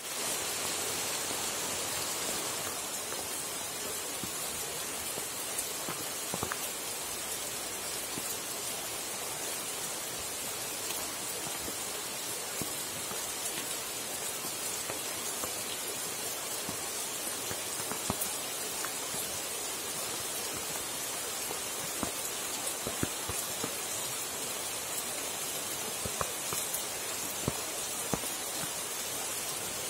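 Sudden rain shower falling steadily on tree leaves and a paved path, an even hiss dotted with scattered louder drops striking close by.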